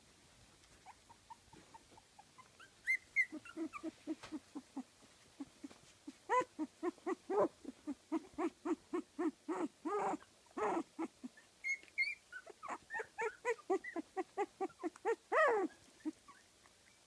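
Fifteen-day-old kooikerhondje puppies whimpering and squeaking: a run of short, quick calls about three a second, starting a few seconds in, with a few higher squeals mixed in.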